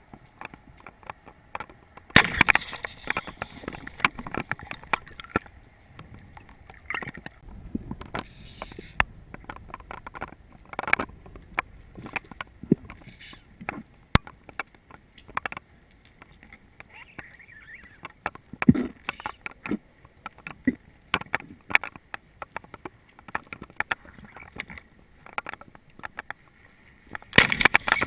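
Water sloshing and gurgling with many irregular clicks and knocks, and louder splashy bursts about two seconds in and near the end.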